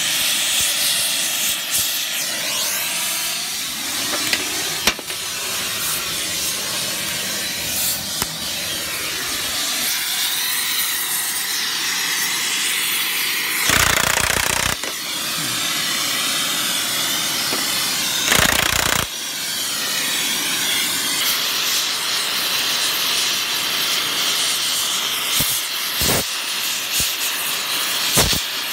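Oxy-fuel torch flame hissing steadily while heating rusted bolts, broken twice by short loud bursts of a Makita cordless impact wrench, the first about a second long and the second about half a second.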